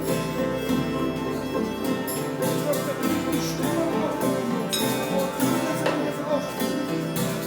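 Acoustic music on sound instruments: plucked strings over held drone tones, with struck percussive notes throughout.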